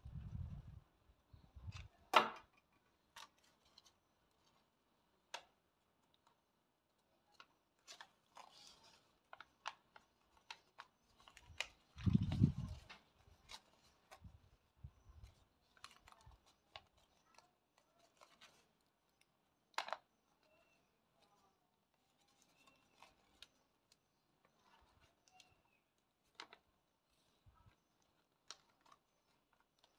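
Stiff paper being handled on a tabletop: scattered light clicks and rustles, with a soft low thump at the start and another about twelve seconds in.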